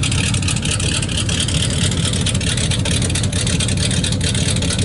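Small-block Chevy V8 idling steadily on a freshly installed carburetor, a low, even drone with a fast pulsing exhaust beat and no revving.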